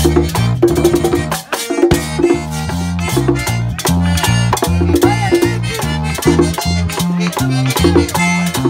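Live merengue típico band playing: button accordion, a scraped metal güira, a tambora drum and an electric bass, in a fast, even rhythm. The music drops away briefly about a second and a half in, then comes straight back.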